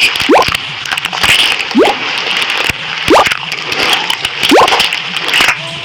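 Slime being squished and kneaded by hand: wet squelching and crackling, with a short rising squeak of trapped air about every second and a half.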